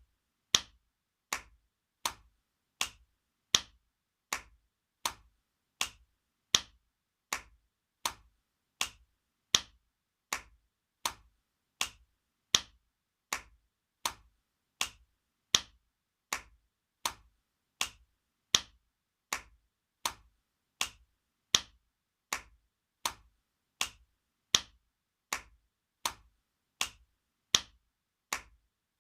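Spanking sound effect: sharp slaps repeating evenly about every three-quarters of a second, in a cycle where every fourth slap is louder.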